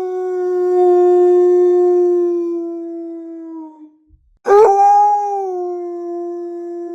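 Wolf howling: one long, slightly falling howl that fades out about four seconds in, then after a short pause a second howl that swoops up and holds steady.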